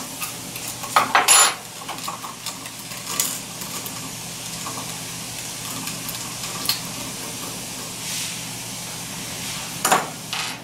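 Metal clinks and knocks from an aluminium support bar and small screws being handled on a Braillo magnet rack. There are a few sharp knocks, loudest about a second in and again near the end, when a bar is set down on the wooden bench.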